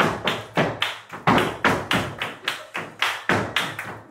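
Flamenco footwork (zapateado): shoes striking the floor in a fast rhythmic run of sharp taps and thuds, about four a second, with hand-clapping (palmas) keeping time.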